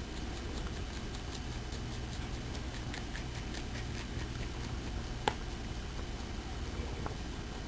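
Angora rabbit chewing parsley, a quick run of small crisp chewing clicks, about four or five a second, with one sharper click about five seconds in.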